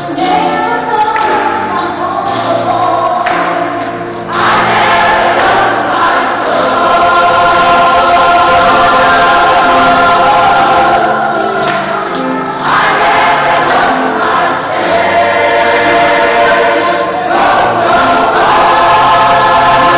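A large choir singing in long held chords, the sound swelling louder several times.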